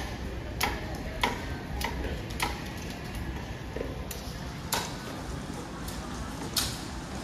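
A knife chopping on a wooden stump block: sharp chops about every 0.6 seconds for the first couple of seconds, then a few more at wider spacing, over market background noise.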